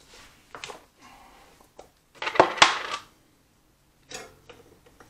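Small round plastic tubs set down on a wooden workbench and a lid pulled off. A scatter of clicks and knocks, with the loudest cluster of rattling knocks a little past halfway.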